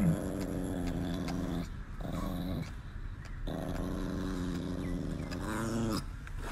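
Chihuahua growling low and steadily, its teeth bared, with short breaks about two and three seconds in: the warning growl of an irritated dog. A brief falling cry comes at the very start.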